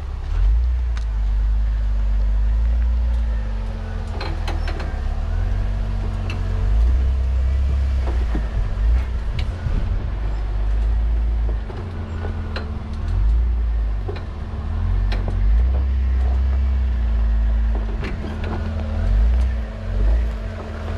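Jeep driving slowly over a rough dirt and rock trail: a low engine and drivetrain rumble that swells and eases, a steady hum, and scattered knocks and rattles from the rough ground.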